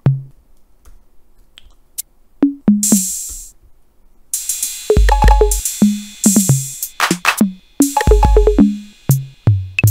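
Drum-machine percussion samples from a browser app, each triggered by clicking its button. The hits come one at a time at an uneven pace: a few scattered strikes at first, then a quick run of many different drum and cymbal sounds, with a few deep thumps among them.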